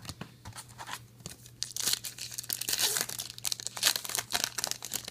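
Foil trading-card pack wrapper being torn open and crinkled by hand, a dense run of sharp crackling rips from about two seconds in to near the end.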